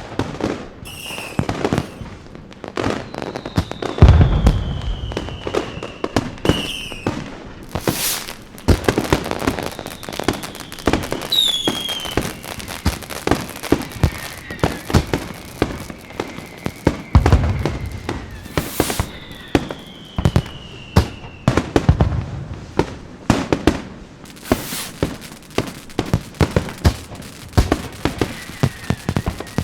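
Fireworks going off: rapid crackling and popping throughout, with deep booms of bursting shells about 4, 17 and 22 seconds in. Several whistling rockets slide down in pitch, around the fourth second, the twelfth and the twentieth.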